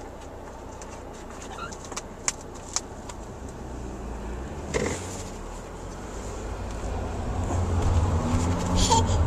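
Car engine and road rumble heard from inside the cabin, growing steadily louder over the last few seconds, with a few faint clicks in the first half.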